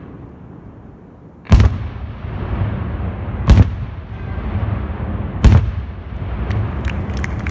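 Aerial firework shells bursting: three loud booms about two seconds apart, each followed by a rolling rumble, then a rapid crackle of small pops near the end.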